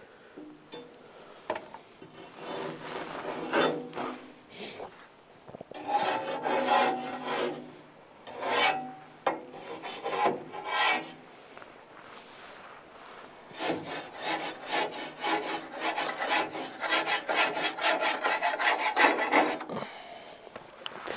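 Metal scraper rod rasping up and down inside the heat exchanger tubes of a Central Boiler Classic Edge 350 outdoor wood boiler, scraping off buildup. It comes in short spells of strokes, then a longer run of quick strokes in the second half.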